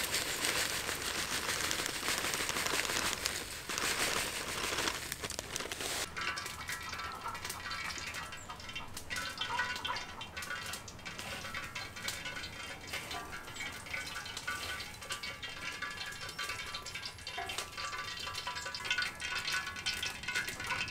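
Dry breadcrumbs pouring from a plastic bag into a steel tray, a steady hiss for about six seconds, then the light, irregular rustling and crunching of hands pressing pieces of chicken into the crumbs.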